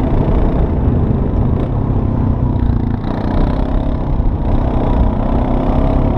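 Honda Rancher 420 ATV's single-cylinder four-stroke engine running steadily under way through snow, easing off briefly about three seconds in, then pulling again.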